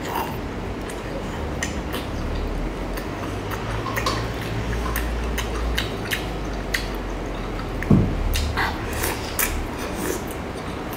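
Close-miked eating of spicy seafood by hand: wet chewing, lip smacks, slurps and sucking on sauce-covered fingers, with scattered small clicks. There is one louder dull bump about eight seconds in.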